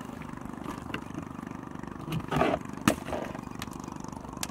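Small engine idling steadily with a fast, even putter. About two seconds in there is a short splash of water as the wet net is hauled over the boat's side, followed by a sharp knock.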